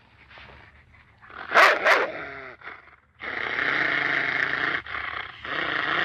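A dog barking twice in quick succession about a second and a half in, then growling in two long stretches.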